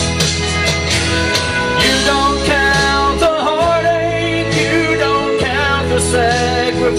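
Country-style backing music playing an instrumental break, a melody line gliding over steady bass and chords.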